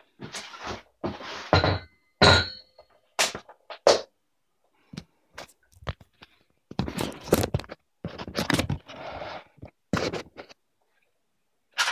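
Irregular knocks, thunks and scrapes of a cardboard box and a wooden board with a saw blade in it being handled and shifted about, with a brief squeak about two seconds in. The angle grinder is not running.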